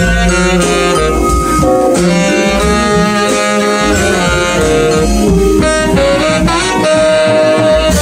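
Live jazz combo playing: saxophone on the melody, with a bend in pitch late on, over vibraphone, drums, upright bass and congas.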